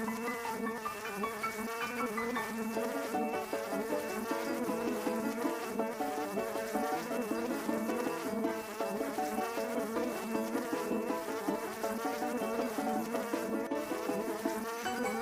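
Buzzing of a cartoon wasp in flight, a continuous drone that wavers up and down in pitch, with light music underneath.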